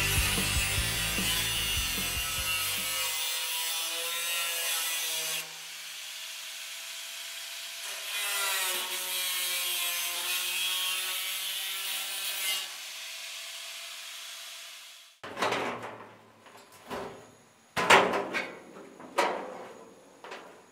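Handheld angle grinder with a cutting disc slicing through a steel drum, its whine wavering in pitch as the disc bites into the metal. It stops about fifteen seconds in, followed by several sharp knocks of the cut sheet metal being handled.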